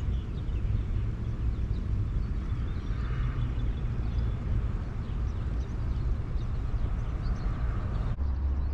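Outdoor ambience: a low, uneven rumble with a few faint, short high chirps over it.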